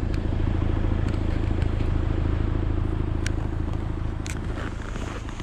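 2021 Land Rover Defender's 2.0-litre Ingenium four-cylinder diesel idling steadily, with a couple of faint clicks about three and four seconds in.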